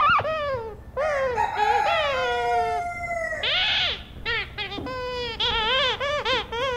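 Rubber chicken squeak toy squealing over and over as a husky bites and chews it, in quick rising-and-falling squeals, with one long falling squeal from about one second to three seconds in.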